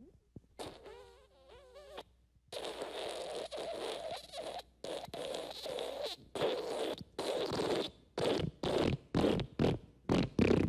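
Fart sound effects: a short, wavering, pitched fart about half a second in. Then a long sputtering fart that breaks into a run of short, rapid bursts toward the end.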